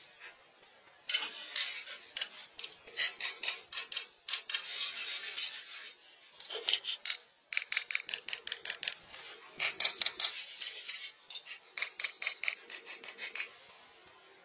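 A hand tool working wood in quick scraping strokes, several strokes a second, in a series of bursts separated by short pauses.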